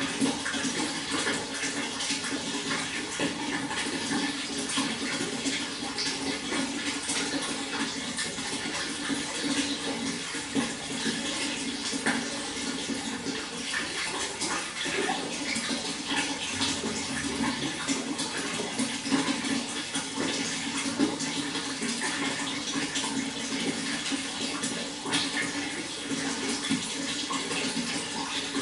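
Water flowing steadily: a continuous rush dotted with many small splashes.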